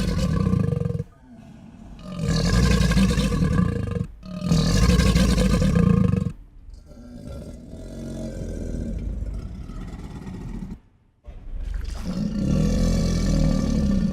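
A large animal roaring: a series of long, rough roars a second or two each, with a quieter, drawn-out growl in the middle.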